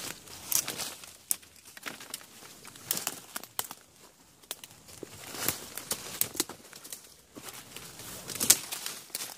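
Footsteps crunching and rustling through dry fallen leaves and twigs, in irregular steps, with a sharper crack about eight and a half seconds in.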